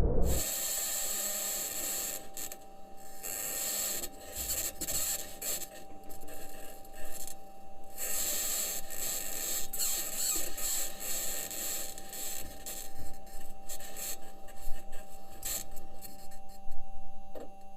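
NASA Perseverance rover driving on Mars, recorded by its own microphone: its metal wheels roll over rock with continuous scraping, squeaking and clanking, over a steady faint hum.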